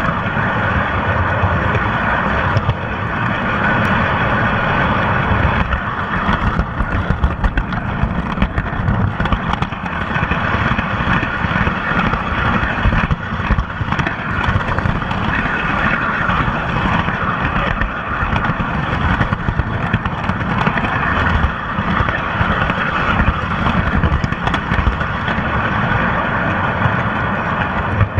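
Lionel O-27 electric toy train running steadily along its three-rail track, heard close up from a car riding on the train: a continuous motor hum over a low rumble of wheels on the rails, with scattered faint clicks.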